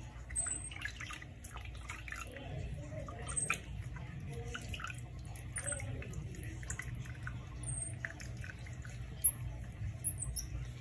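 Water dripping and splashing as a baby marmoset is washed by hand in a small bowl of water, with scattered small clicks. A few short, high chirps recur every couple of seconds.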